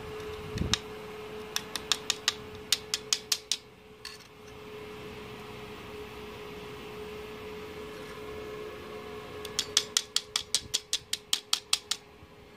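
Stick-welding electrode tapped against a wire-wound dummy-load resistor on a repaired Morris 160A IGBT inverter welder, striking short arcs in two runs of sharp crackling snaps, about five a second, one near the start and one near the end. The load test is under way, with a steady whine from the welder underneath.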